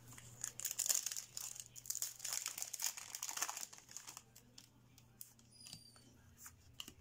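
Foil Yu-Gi-Oh booster pack crinkling as it is torn open by hand. About four seconds in, the crinkling gives way to fainter, scattered light clicks.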